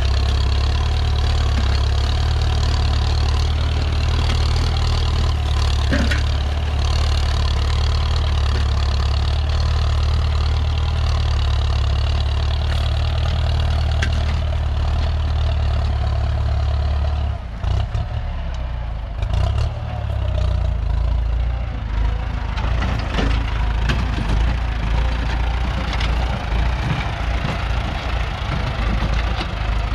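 Ford 6610 tractor's four-cylinder diesel engine running with a steady drone; about two thirds of the way through, the steady note breaks off and the engine sound turns a little quieter and uneven, pulsing.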